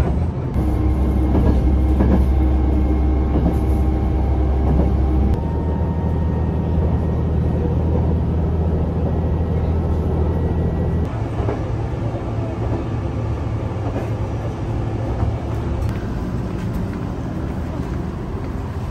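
Running noise of the Tango no Umi diesel railcar heard inside the passenger cabin: a steady low rumble with faint humming tones. The sound changes abruptly a few times.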